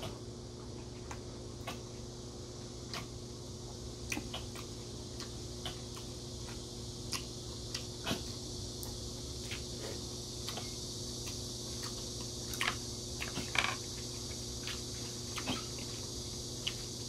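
Small scattered clicks and wet smacks of a person eating noodle soup: chewing and wooden chopsticks tapping the bowl. Underneath is the steady hum and hiss of an electric fan.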